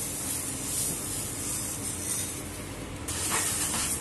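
Coconut milk and agar-agar mixture boiling in a pan, a steady bubbling hiss. About three seconds in, a wooden spatula starts stirring the sugar in, with short scrapes against the pan.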